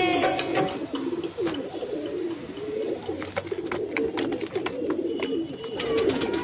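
A flock of domestic pigeons cooing, many low coos overlapping, with scattered sharp clicks among them. Background music cuts off about a second in.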